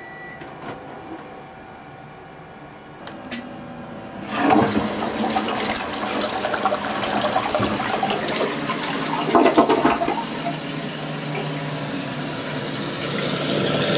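Toilet flushing: two clicks, then a sudden rush of swirling water about four seconds in that runs for several seconds. Near the end it settles into a steadier run of water with a low hum, a faucet running into a sink.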